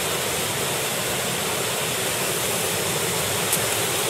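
Waterfall pouring into a pool: a steady rushing roar of falling water.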